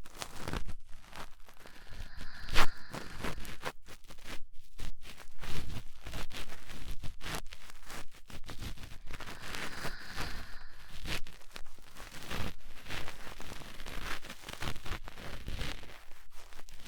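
Cotton swab rubbing and scratching inside the ear of a 3Dio binaural microphone: dense, irregular crackly scraping, with one sharper click about two and a half seconds in.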